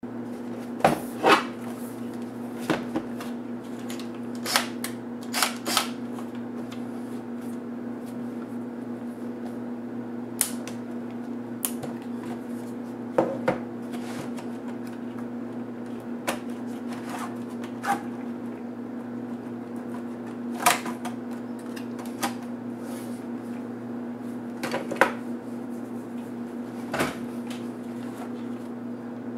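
Scattered clicks and knocks of a Sony VAIO laptop's plastic case being handled, turned over and set down on a table while its battery and optical drive are taken out, the loudest about a second in. A steady low electrical hum runs underneath.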